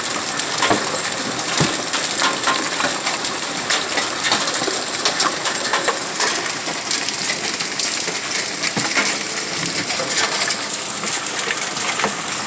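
Hailstorm with heavy rain: hailstones, some golf-ball-sized, hit the concrete in a dense, irregular patter of sharp clicks and knocks over a steady hiss of rain.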